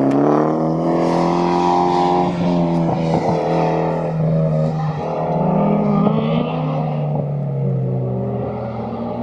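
A car's engine being driven hard through an autocross course, revving up and easing off so that the pitch climbs and drops every couple of seconds.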